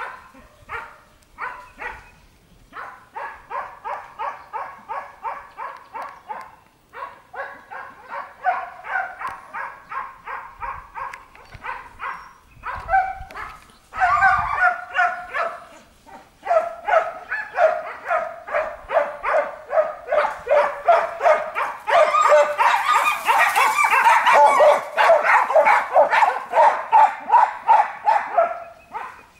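Istrian wire-haired hound baying, a hunting hound's rapid run of barks at about three a second, broken by a few short pauses and loudest in the last third.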